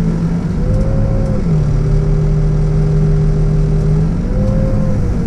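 New Holland B95 backhoe loader's diesel engine running steadily, with a higher whine that rises in pitch twice, about a second in and again near the end.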